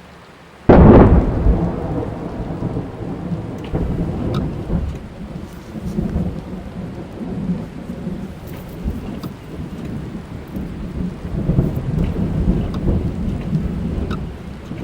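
A sudden thunderclap just under a second in, followed by long rolling thunder that swells and fades several times. Under it, rain falls steadily on a car, heard from inside.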